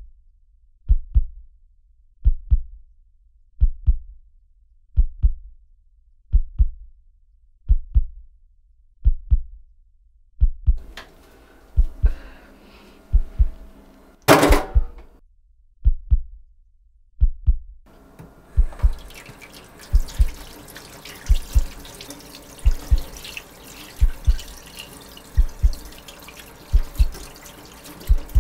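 Slow heartbeat sound effect, a deep double thump a little under every second and a half throughout. About halfway there is a brief loud rush, and from about 18 seconds in, tap water runs steadily into a stainless steel sink under the heartbeat.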